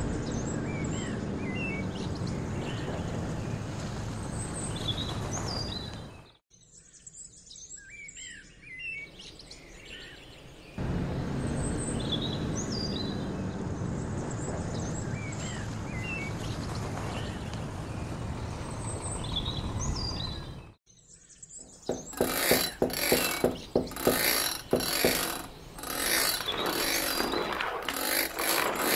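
A truck engine running with birds chirping over it. The engine drops away for about four seconds, leaving only the birds, then comes back. About three-quarters of the way in, the engine stops and a run of loud, rapid, uneven mechanical clatters and rattles begins.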